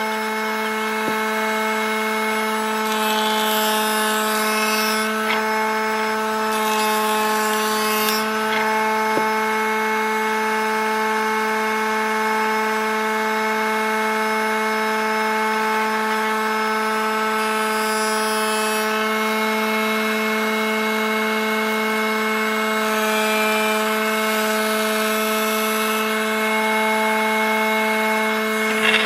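Wood spindle moulder (shaper) running without cutting: a steady, even machine whine. Two short hissing bursts come in about three and seven seconds in.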